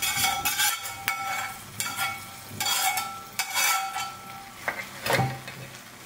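A metal spoon scrapes fried chopped garlic and hot oil out of a non-stick frying pan into a saucepan of cooked red lentil dal, in repeated scraping, clinking strokes of metal on metal, with the hot oil sizzling as it meets the dal. About five seconds in there is a single louder knock as the pan is set down, and the spoon then stirs the dal.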